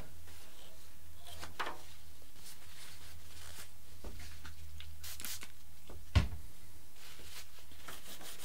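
Faint rustling of a paper tissue being rubbed over the tail of a model plane, with scattered small clicks from handling and one sharp knock about six seconds in, over a steady low hum.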